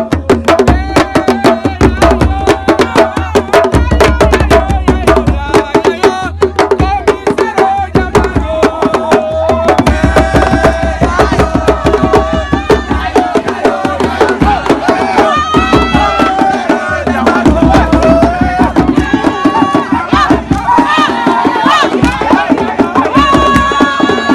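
Fast, dense hand-drum rhythm with voices singing along in a wavering chant, loud throughout.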